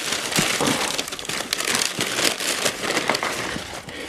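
Brown packing paper crumpling and crinkling as it is pulled open by hand to unwrap a parcel, a dense irregular rustle that eases off near the end.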